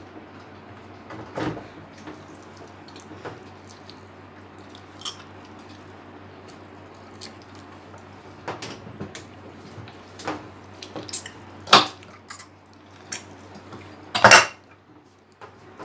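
Hand-cranked metal meat grinder being turned with raw meat in its hopper: irregular metallic clicks and knocks, more frequent in the second half, with the loudest clunks about two-thirds of the way in and near the end.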